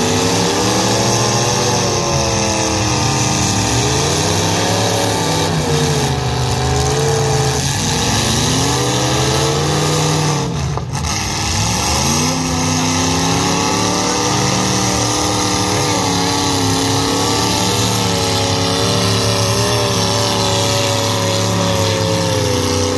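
Demolition derby cars' engines revving hard, their pitch rising and falling over and over, with a brief dip a little before halfway.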